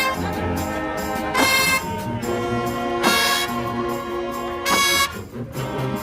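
Marching band brass section playing held chords, with loud accented blasts about every second and a half.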